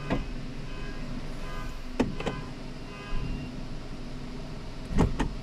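Toyota Corolla engine idling steadily, with sharp clicks at the start, twice about two seconds in and twice near the end; no knocking stands out while the gear is shifted.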